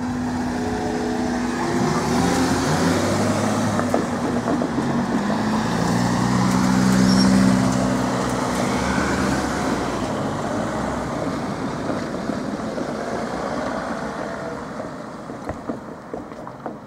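Old Smiths Industries level-crossing barriers raising slowly and noisily, with a mechanical hum that steps in pitch, swells about halfway through and then fades.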